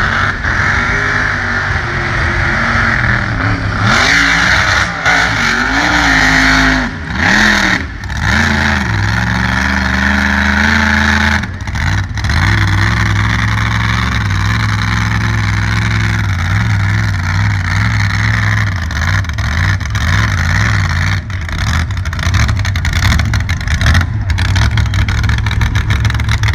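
Mega truck engine revving hard several times, its pitch climbing and falling, then running on at a steadier, lower note for the second half.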